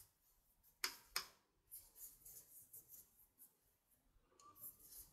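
Near silence, with faint scratchy rustles and two soft ticks about a second in, as a metal crochet hook pulls thick yarn through the stitches.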